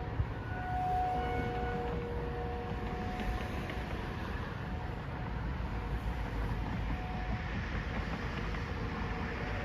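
Outdoor warning sirens sounding a steady alert tone on several pitches at once. The tone fades out about three seconds in and comes back faintly near the end, under the rumble of passing road traffic that grows louder through the middle.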